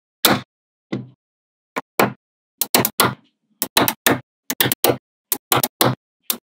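Small magnetic balls clicking sharply as blocks of them snap onto a wall of magnet balls: a quick, irregular run of about twenty hard clicks, some single and some in quick twos and threes, with silence between.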